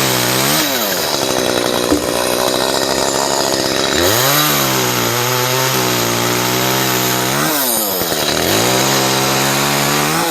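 Chainsaw cutting limbs, its engine revving up, holding high and dropping back about three times.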